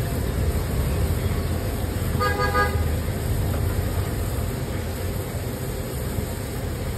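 A vehicle horn toots once, briefly, a little over two seconds in, over a steady low rumble of street traffic.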